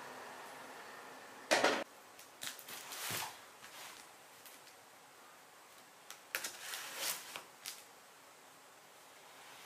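Hands handling a cardboard parcel on a wooden floor: scattered knocks and rustles of cardboard and plastic wrap, the loudest about a second and a half in and a short cluster of them later on.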